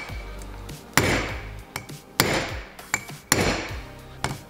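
Hammer tapping on the backed-out bolts of a forged connecting rod to pop its cap loose: three harder blows about a second apart with lighter taps between, each ringing briefly.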